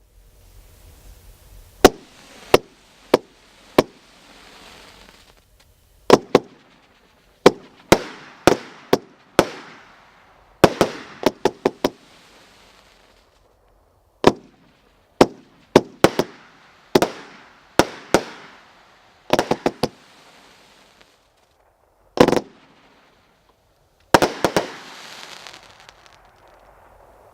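A Gunsmoke 500-gram fireworks cake firing: a run of sharp bangs, some single and some in quick clusters, each followed by a hissing, crackling tail. The first bang comes about two seconds in, and there is a dense rattle of reports near the end.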